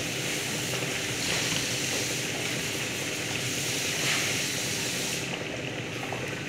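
Food sizzling in a frying pan on an electric hotplate as it is stirred with a spatula. The sizzle dies away near the end, once the pan is lifted off the heat.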